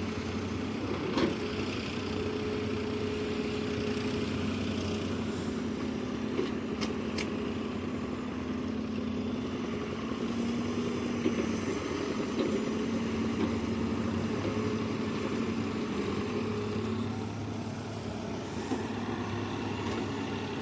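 Diesel engine of heavy earth-moving machinery running steadily, its pitch shifting a little as it works. A few sharp knocks come early and about seven seconds in.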